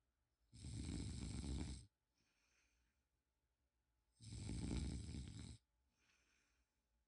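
Snoring: two long snores, each about a second and a half and roughly four seconds apart, with a faint breath between them.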